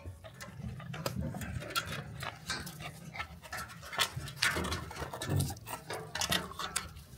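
Dogs close by, panting and moving about, with many irregular short rustling clicks.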